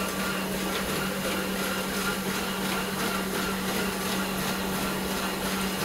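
Barcode printing press running steadily: an even motor hum with a faint, regular clatter from the paper-feed mechanism.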